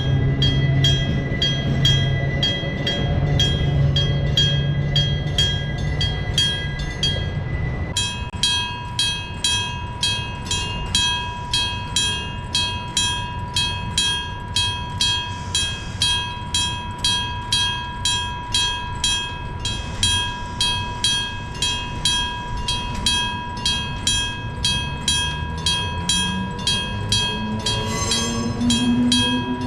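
Japanese electric-bell level crossing signal ringing, its bell struck about twice a second, with a train's low drone under it in the first part. The bell's sound changes abruptly about eight seconds in, and near the end a nose-suspended traction motor whines, rising in pitch as the train pulls away.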